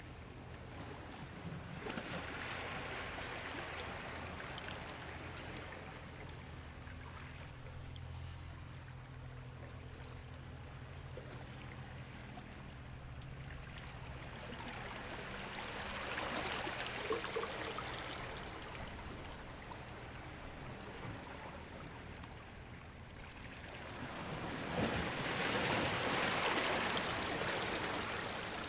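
Ocean surf washing on a beach: the rush of water swells and falls back three times, a few seconds in, in the middle, and loudest near the end. A faint low hum runs under the quieter middle stretch.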